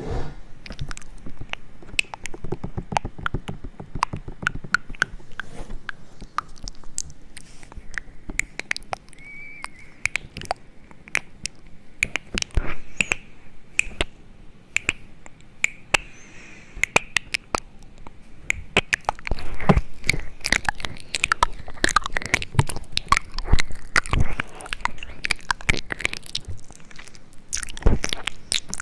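Close-miked crunching and crisp clicks in quick, irregular runs, busiest in the second half.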